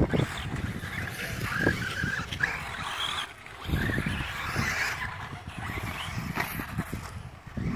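Brushless electric motor of an Xray XB8 1/8-scale off-road RC buggy (4274 2200kv motor on a Hobbywing 150A ESC) whining as the car speeds up and backs off around the track. The whine rises and falls over and over, drops away briefly about three and a half seconds in, and has an uneven low rumble beneath it.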